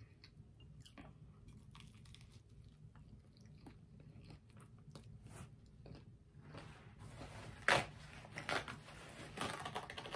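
Close-up mouth sounds of chewing a bite of toasted bacon and lettuce sandwich, with small crunches and clicks. Several louder rustles come in the last few seconds as a paper napkin is handled.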